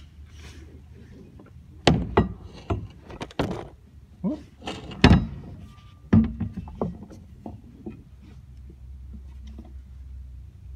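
Spare axle shaft knocking and clunking against metal and hard rubber as it is pushed into rubber clamp mounts: about ten sharp thunks in quick succession, the loudest near the middle. After that come only faint handling sounds.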